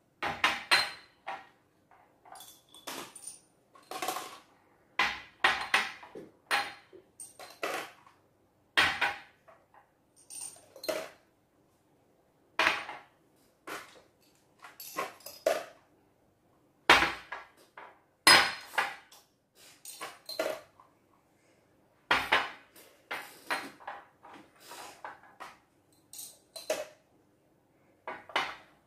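Small glass jars being picked up and set down on a tabletop, clinking against one another, in an irregular series of sharp knocks, some with a short glassy ring.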